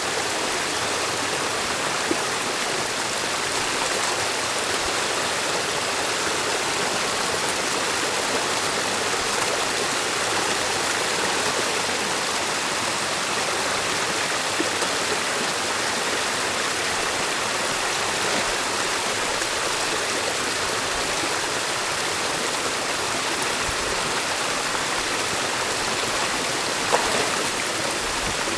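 Water of a forest stream rushing steadily through a beaver dam, a continuous dense wash of flowing water. A few faint knocks sit in it, one slightly louder near the end.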